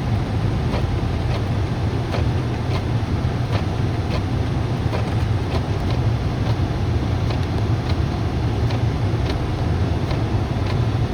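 Steady low rumble of a car being driven on a snowy road, heard from inside. A faint regular tick comes about every 0.7 seconds.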